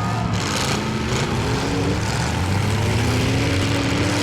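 Demolition derby cars' engines running together, with one engine revving up slowly about halfway through.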